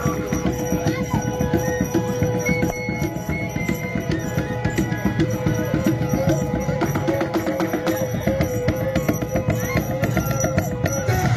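Traditional Toraja drum music: drums beaten in a quick, steady rhythm, with a long held note sustained over them that wavers slightly in the second half.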